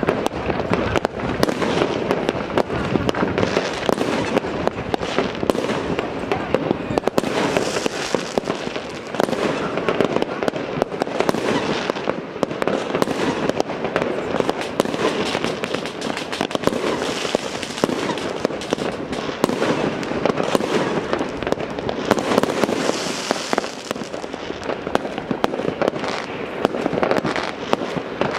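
Many distant fireworks and firecrackers going off all at once, a dense, unbroken crackling and popping with no pause.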